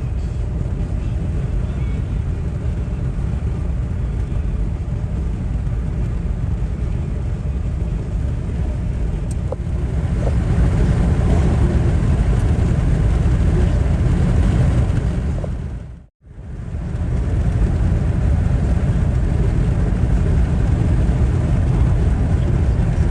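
Steady low rumble of a car driving on the road. It drops out for a moment about two-thirds of the way through, then resumes.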